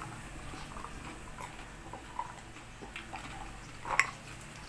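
Faint, quiet eating sounds from bare hands picking at rice and barbecued chicken: a few soft clicks and small mouth noises, the sharpest click about four seconds in.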